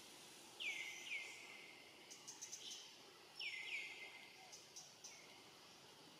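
Birds calling faintly: short whistled notes that slide downward in pitch, coming in pairs about a second in and again about three and a half seconds in, with a few faint clicks between them, over a steady outdoor hiss.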